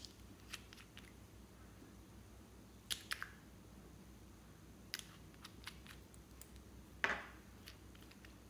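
Small plastic cosmetic bottle being handled, with a few sharp clicks and taps from its cap and plastic body. The loudest click comes about seven seconds in as the cap is worked off.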